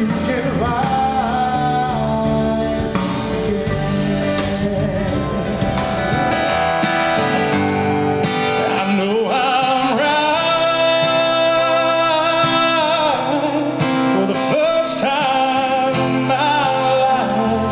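Live music: a man singing a song while strumming an acoustic guitar, with a band playing behind him.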